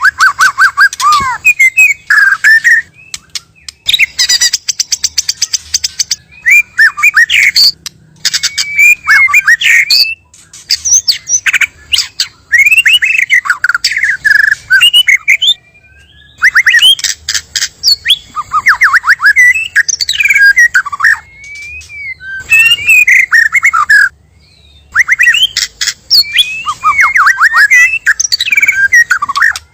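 White-rumped shama (murai batu) singing: bursts of rapid clicking notes mixed with loud whistled phrases that sweep up and down, separated by brief pauses.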